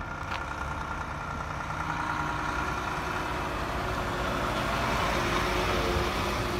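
Volvo tri-axle dump truck's diesel engine running as the truck drives up and passes close by, growing steadily louder, the engine note dipping slightly as it goes past.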